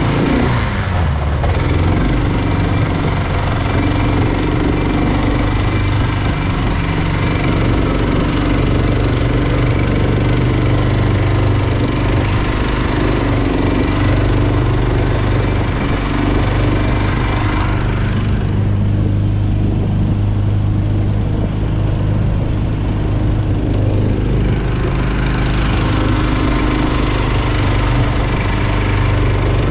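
Predator gas engine driving a Mud-Skipper long-tail outdrive, running steadily; its pitch drops about a second in as the revs come down, then holds.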